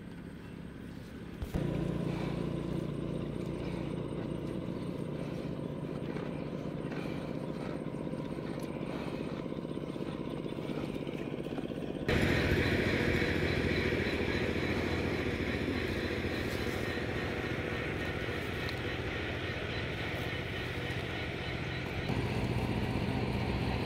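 An engine running steadily with a low hum, stepping up in loudness about a second and a half in, about halfway through, and near the end.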